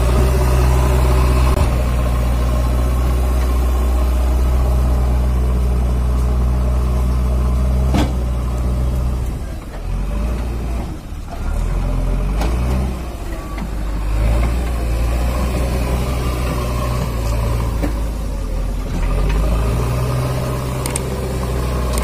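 JCB 3DX backhoe loader's diesel engine running under load as the machine works into a sand pile, its note easing off for a few seconds about halfway through and then picking up again. A sharp click sounds about eight seconds in.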